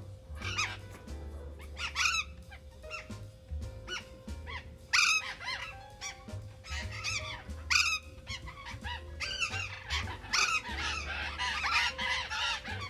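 Burrowing parrots giving loud, harsh screeching calls over and over, several birds calling at once and the calls crowding together in the second half.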